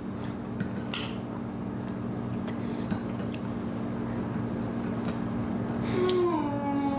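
Baby eating finger food in a high chair, with small wet mouth and tray clicks over a steady low hum. Near the end a voice hums briefly, falling in pitch.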